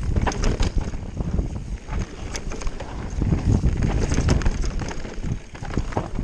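Mountain bike descending a dirt trail at speed: wind rumble on the microphone with irregular clattering knocks as the bike goes over bumps and roots.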